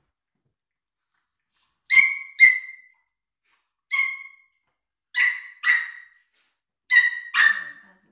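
A dog giving short, high-pitched yips, seven in about six seconds, mostly in quick pairs.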